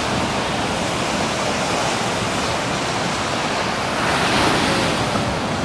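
Steady rush of surf breaking on the beach, swelling a little about four seconds in.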